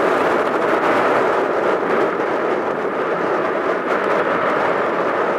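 Airbus A321 airliner on final approach with landing gear down, its jet engines making a steady, loud rushing noise.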